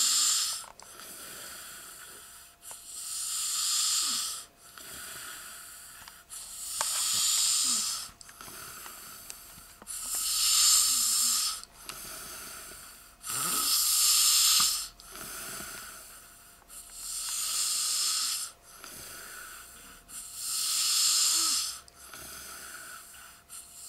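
A sleeping man snoring in a steady rhythm: about seven loud, airy, hissing snores, one every three seconds or so, with quieter breaths between.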